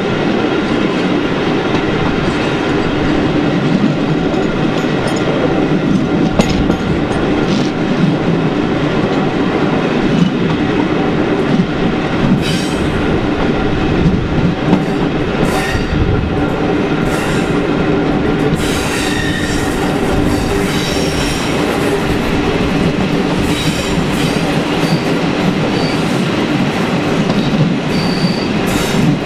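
Passenger train running, heard through an open coach window: steady wheel and engine rumble with clicking over the rail joints. Thin high wheel squeals come and go in the second half as the train rounds curves.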